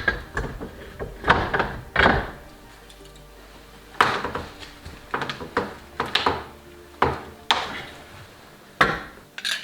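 Background music over a series of irregular knocks and light metallic clanks, about a dozen of them: sheet-metal patch pieces being handled and test-fitted against a rusted van door.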